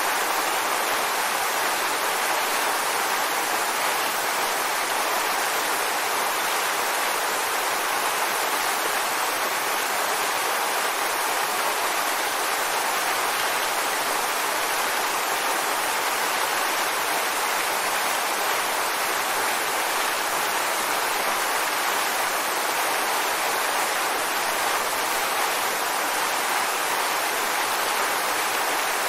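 Waterfall: a steady, even rush of falling water with no breaks, more hiss than low rumble.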